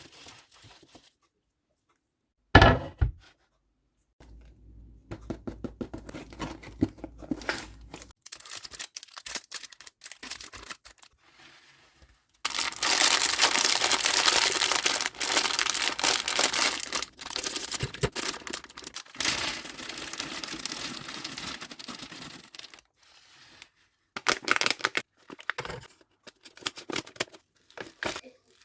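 Plastic candy packaging being torn open and crinkled while sweets are handled. There is a sharp snap about three seconds in, then scattered small clicks, then a long stretch of dense crinkling and rustling in the middle, and a few more sharp clicks near the end.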